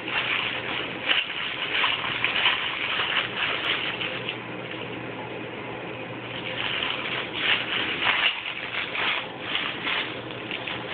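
Crinkle book being handled, its crinkly pages giving off spells of quick rustling crinkles. It eases off for a couple of seconds about four seconds in, then starts up again.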